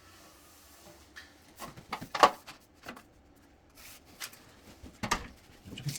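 Several short, sharp clicks and knocks of measuring and marking tools being handled against the wall, the loudest a little over two seconds in.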